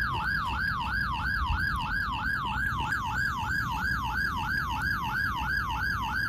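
Police siren in a fast yelp, its pitch sweeping up and dropping back about four times a second, over a low rumble.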